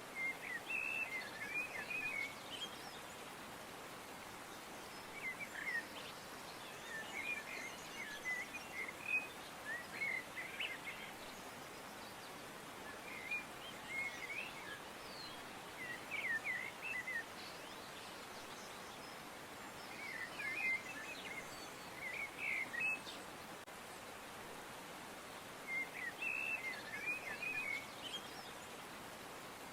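Birds chirping in short clusters of quick notes every few seconds, with brief gaps between, over a steady background hiss.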